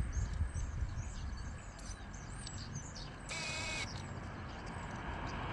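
Outdoor ambience of small birds chirping and calling, with one brief louder call about three seconds in, over a low steady rumble.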